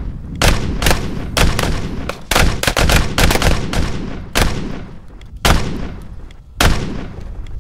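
Handguns firing a rapid, irregular string of about a dozen shots, each with a short echo. The shots come thick for the first few seconds, then space out, with the last two about a second apart.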